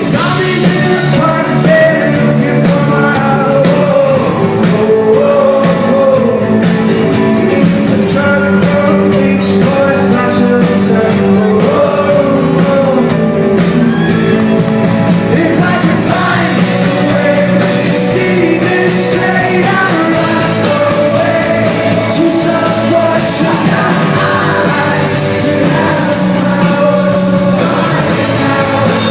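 A rock band playing live, with a lead vocal sung over the full band and a steady drum beat, in a large concert hall.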